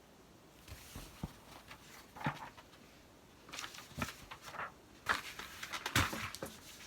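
Soft paper rustling and light clicks, scattered and irregular, as a picture book is handled and its pages turned.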